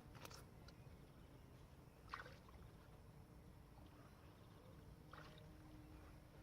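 Near silence: a faint low rumble of outdoor background, with three faint brief sounds spaced about two and three seconds apart.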